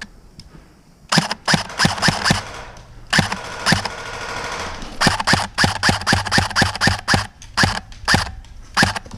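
Airsoft guns firing sharp, snapping shots in quick runs, at times about five shots a second.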